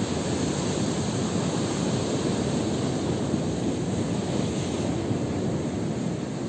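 Steady rushing noise of surf and wind, with no distinct events.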